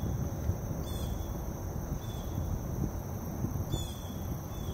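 Outdoor river ambience: a steady high-pitched insect drone with short bird chirps every second or so, over a low rumble.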